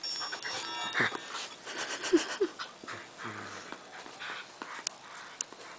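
Shetland sheepdog panting in quick puffs while she mouths and shakes a small iron ball, whose jingle bell rings with a few high, steady metallic tones in the first second.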